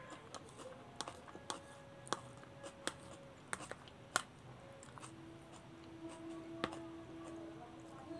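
A metal fork clicking and scraping against a plate while gathering noodles: about seven sharp, irregular clicks, most of them in the first four seconds. A faint steady hum sits behind them from about five seconds in.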